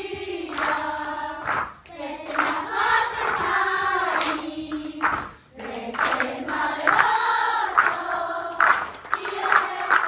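A group of children singing together in phrases, with rhythmic hand clapping that is most frequent in the second half.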